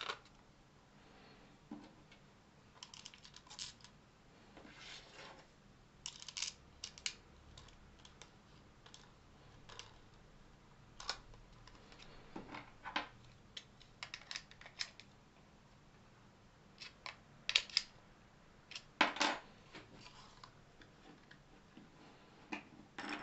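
Scattered small clicks and taps of 3D-printed plastic clock parts being handled, pressed together and set down on a wooden tabletop, with the louder knocks about two-thirds of the way through.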